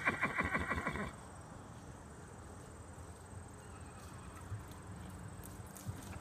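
A horse whinnying, its call ending about a second in, followed by quiet with a few faint hoof thuds near the end.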